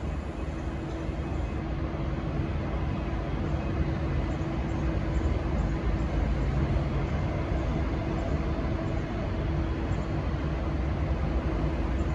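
V/Line N class diesel-electric locomotive running at a standstill: a steady low engine drone with a constant hum over it.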